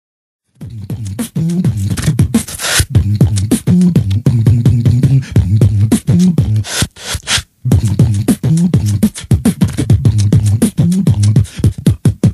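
Beatboxing: a fast rhythm of mouth clicks and snares over a low hummed bass line, starting about half a second in and breaking off briefly near the middle before the same pattern starts over.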